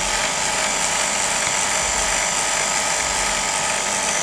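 Refrigeration vacuum pump running steadily, a constant motor drone with a high hiss, while it pulls a vacuum on a refrigerator's sealed system before charging.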